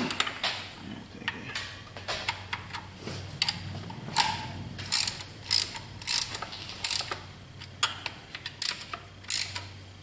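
Hand ratchet clicking in irregular runs as a bolt is run down, likely on the diesel engine's newly refitted thermostat housing, with the odd metal tap of the tool.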